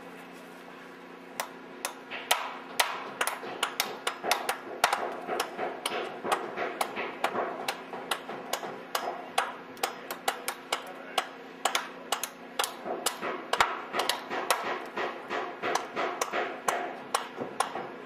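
Hammer striking on lumber, nailing a 2x4 board, in a quick rapid series of sharp strikes about three a second that starts about a second and a half in.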